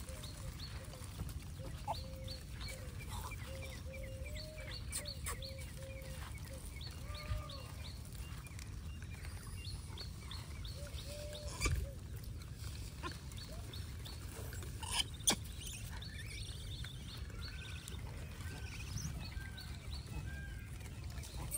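Animal calls: a run of short, repeated mid-pitched calls that comes twice, with fainter high chirps and a few sharp clicks over a steady low rumble.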